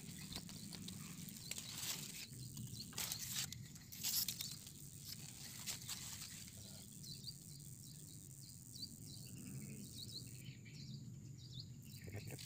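Outdoor swamp ambience: a low steady background with scattered clicks and rustles in the first few seconds, then a run of short, high, repeated chirps through the second half.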